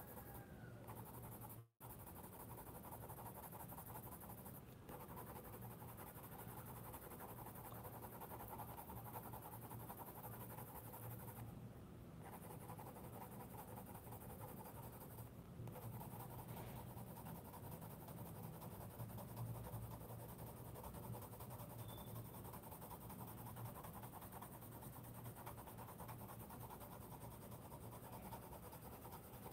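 Faint, steady scratching of a Navneet Youva colored pencil shading on thick Brustro sketchbook paper with light pressure, as a colour layer is built up.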